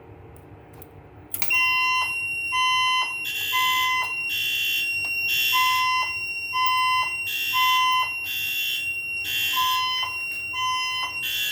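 Fire alarm sounders switch on about a second and a half in. A steady high tone sounds together with short repeated beeps and pulsing horn-like blasts about once a second: the alert tone of a voice evacuation fire alarm system between its spoken messages.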